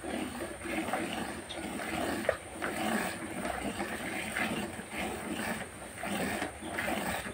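Cow being milked by hand: jets of milk squirting into a plastic bucket partly full of frothy milk, in a steady rhythm of about two squirts a second.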